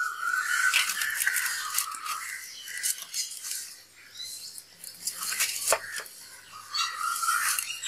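Wood fire of sticks and coconut husk crackling and hissing under a pot of water coming to the boil, with a sharper pop about six seconds in.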